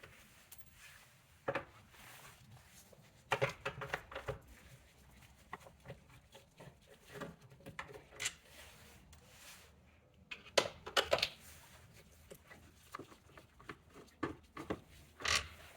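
Irregular clicks and light taps of a hand tool working out the T25 Torx screws that hold a car door speaker, coming in short clusters with quiet gaps between them.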